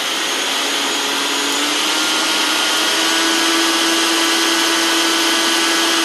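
A Preethi Diamond mixer grinder's universal motor runs with no jar fitted on a freshly replaced bearing, giving a steady high whine. The pitch steps up about three seconds in as the speed switch is turned. The speed is all good.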